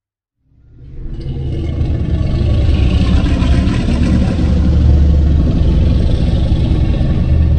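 Godzilla sound effect: a loud, deep, rumbling noise that swells up about half a second in and holds steady for several seconds.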